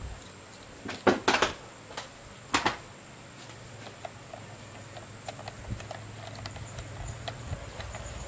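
Sharp metallic clicks and clatter of a screwdriver against a Ryobi grass trimmer's engine, loudest about a second in and again near the middle. These are followed by a run of quicker, fainter ticks as the screwdriver is worked.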